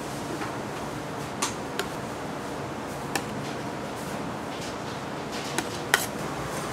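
About five sharp light clicks and taps of cake-decorating tools being handled, the loudest near the end, over a steady background hum.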